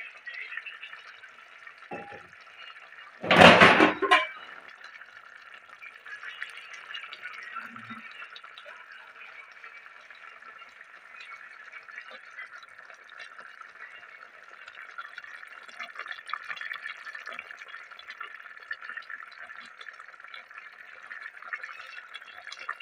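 A pot of tomato-based sauce with fried tilapia and zucchini simmering, a steady fine bubbling with many small pops. A brief, loud burst of noise comes about three and a half seconds in.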